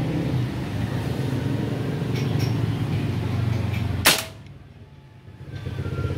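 A single sharp shot from a homemade Molly 1 .22-calibre pellet air rifle about four seconds in. Under it an engine hums steadily and dips briefly right after the shot.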